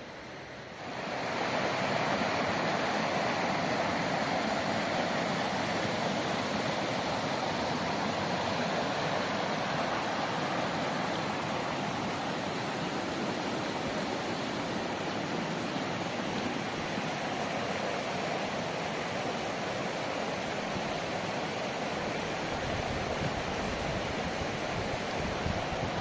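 Steady rushing of flowing river water, which comes in about a second in.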